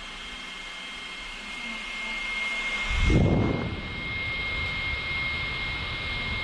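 Small electric fan running, a steady rush of air with a thin high motor whine. It grows louder, peaking with a brief low rumble about three seconds in, then settles.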